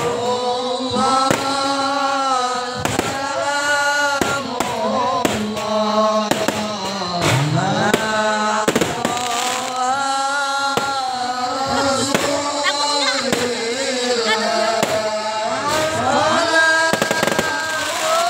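Fireworks going off in an irregular string of sharp bangs, over a voice chanting devotional singing in long, held, wavering notes.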